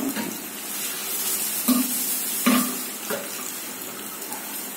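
Hot oil sizzling steadily in a small steel pan as shallots, a dried red chilli and mustard seeds fry for a tempering, with a few brief louder sounds about two seconds in.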